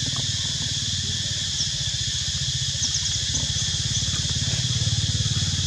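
A small engine running steadily with a fast, even low throb that swells slightly near the end, over a steady high drone of insects and a few short high chirps.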